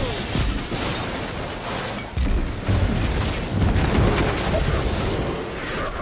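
Movie sound effects of a nuclear bomb blast: a continuous rumbling explosion and blast wind with crashing debris, swelling louder about two seconds in.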